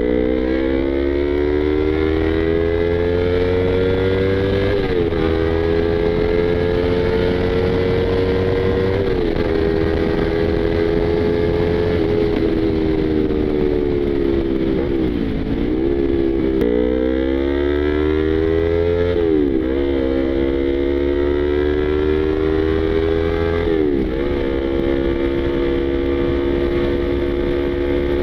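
Yamaha YZF-R25 parallel-twin sport bike engine under way, with the pitch climbing as it pulls and dropping sharply at each of several gear changes; around the middle the throttle closes briefly and the pitch dips, then picks up again.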